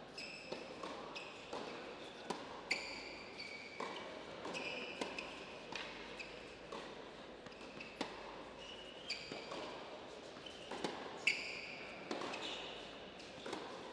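Tennis rally on an indoor hard court: a serve, then a string of racket strikes and ball bounces ringing in the hall, with short high squeaks from the players' shoes on the court.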